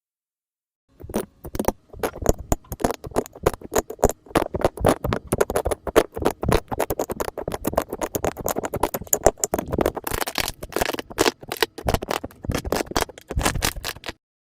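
Slime being squeezed and pressed by hand, a dense run of sticky clicks and crackles that starts about a second in and cuts off suddenly just before the end.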